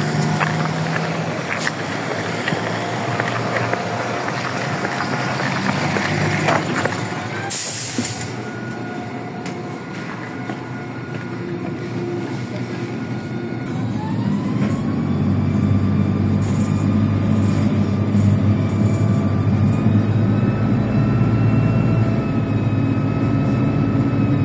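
MAZ-103 city bus heard first from the stop with traffic noise and a short sharp hiss about seven seconds in, then from inside the cabin: about fourteen seconds in the engine and transmission whine rise together as the bus pulls away, then settle into a steady drone with a low rumble while it cruises.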